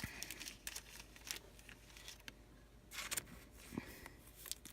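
Faint scattered rustles and light clicks of trading cards and their packaging being handled, with a short cluster about three seconds in.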